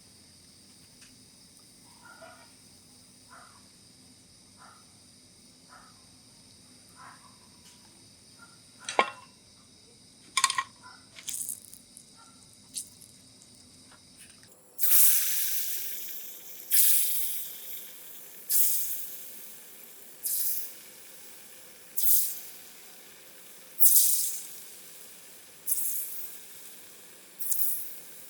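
Deep-frying palm fruit fritters: spoonfuls of batter dropped one after another into hot oil, each landing with a loud sizzle that fades, about every two seconds in the second half. Before that, only faint light taps and a few sharper knocks.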